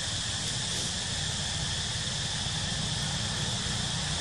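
Steady outdoor background noise: an even hiss with a continuous high drone and a low rumble underneath, and no distinct calls or knocks.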